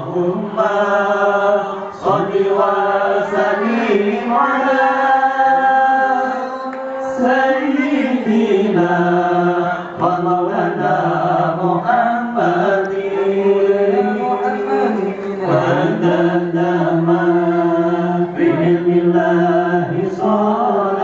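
A group of men singing an Islamic sholawat chant in unison into microphones, amplified through a PA, in long held and sliding notes phrase after phrase.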